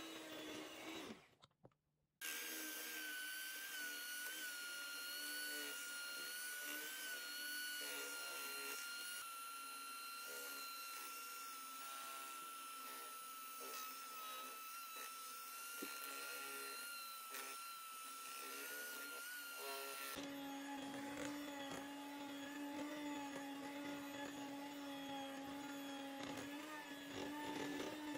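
Electric hand mixer running, its beaters whipping thick cake batter in a glass bowl: a steady motor whine that stops briefly about a second in, then changes to a lower hum about twenty seconds in.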